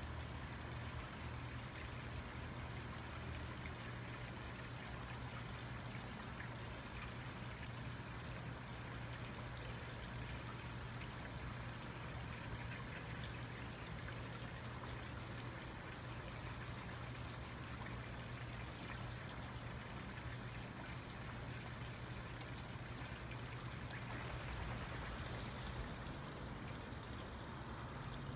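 Small garden pond waterfall trickling and splashing steadily over stacked rocks into the pond.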